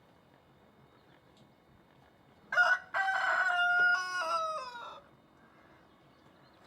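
A rooster crowing once, about two and a half seconds in. A short opening note is followed by a long held note that steps down in pitch and fades out.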